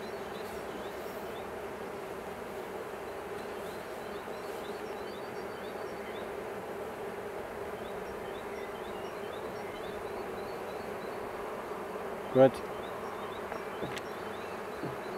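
Steady buzzing hum of a honeybee colony in an open hive, with a couple of light clicks near the end.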